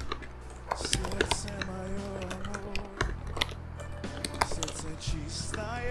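Typing on a computer keyboard: a run of irregular key clicks, with music playing underneath.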